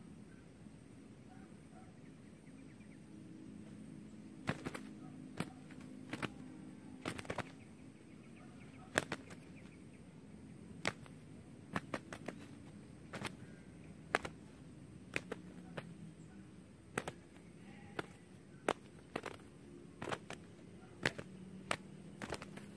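Spotted doves fighting, their wings striking in sharp slaps, singly or in quick pairs, about once a second from about four seconds in.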